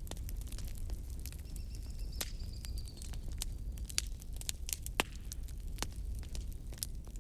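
Wood fire in a fireplace crackling and popping irregularly over a steady low rumble of the flames. A faint high whistle comes in about a second and a half in and lasts about two seconds.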